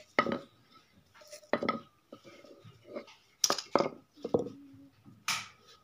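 About six sharp clinks and knocks at irregular intervals, each with a short ring: hard objects striking on a concrete floor.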